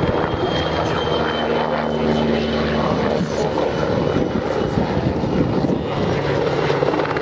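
PZL W-3A Sokol helicopter flying overhead: steady, loud rotor and twin turboshaft engine noise, with a thin high whine over the first few seconds.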